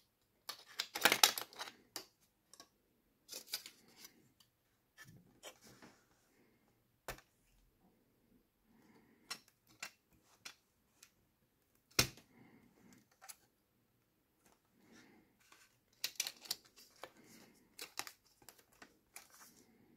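Clear plastic film and aluminium foil shielding crinkling and crackling as they are handled by hand, in irregular crackles and sharp clicks. The loudest crackle comes about a second in and a single sharp snap around the middle.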